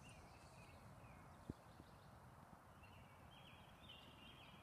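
Near silence: faint outdoor ambience with a few faint high chirps, and a single soft tap about a second and a half in.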